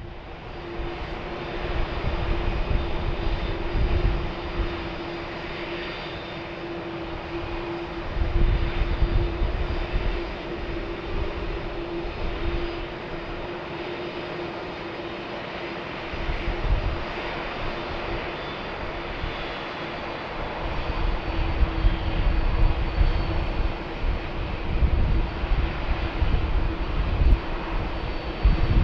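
Boeing 747-400 airliner's jet engines running: a continuous roar with a steady hum-like tone through it and a low rumble that swells and fades, growing louder near the end.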